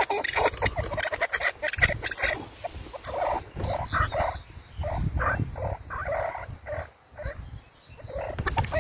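Chukar partridges calling: a run of quick clucking notes, dense at first and then breaking into spaced groups, with a short lull near the end.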